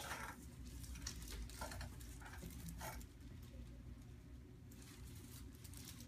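Faint, soft rustling and brushing of hands on a man's head, neck and clothing as they are positioned on the adjusting table. It comes as a few short soft scuffs in the first three seconds and fainter ones near the end, over low room hum.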